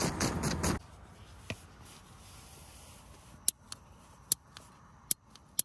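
A loud rustling noise outdoors cuts off suddenly under a second in. Then, in quiet, a handheld piezo lighter clicks sharply four times, sparking at a gas canister stove's burner that fails to light.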